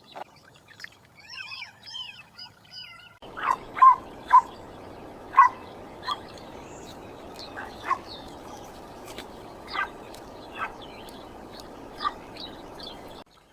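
Small birds twittering, then after a sudden cut a dog barking about nine times, in single short barks at irregular intervals, over a steady background hiss.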